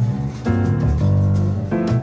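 Background music: an instrumental track with a strong, sustained bass and changing chords.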